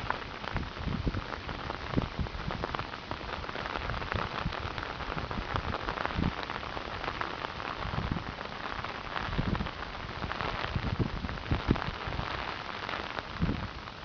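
Heavy typhoon rain pouring steadily, dense patter of drops, with repeated low rumbling gusts of wind buffeting the microphone every second or two.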